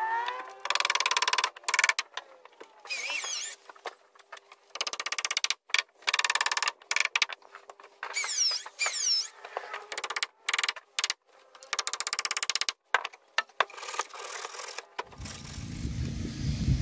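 Sped-up, chopped sound of a hand-held power tool working the wooden hull's top edge: short broken runs of high squealing sound that start and stop abruptly, the pitch sweeping up and down. Near the end a low rumble comes in.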